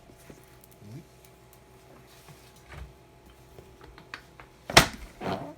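Faint clicks of small objects being handled over a low hum, then a loud sharp clack near the end followed by a smaller clatter.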